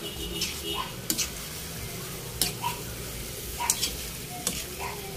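Metal spatula clinking and scraping against a wok as pork and liver are stirred in a bubbling sauce, with several sharp clinks at irregular intervals over the steady sizzle of the pan.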